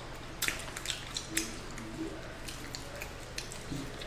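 Mukbang eating sounds: mouth noises of chewing and lip smacking as food is eaten, heard as a scatter of short, sharp, wet clicks over a steady low hum.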